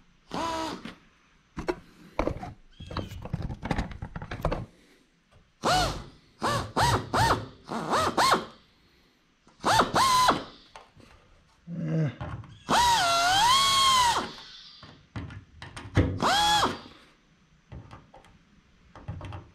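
Pneumatic drill with a small number 41 bit drilling out the shop heads of 1/8-inch aircraft rivets in a series of short trigger bursts. Its whine rises as it spins up and dips as the bit bites. One longer run comes about thirteen seconds in.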